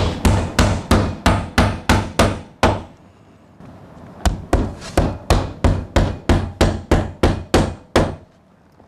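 A hammer driving plasterboard nails through plasterboard into timber studs: a run of sharp, even strikes about three a second, a pause of about a second and a half, then a second run of strikes that stops shortly before the end.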